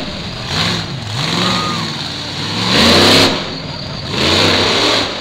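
Monster truck engine revving in repeated bursts, about four, the pitch rising and falling with each throttle stab, loudest about three seconds in and again near the end.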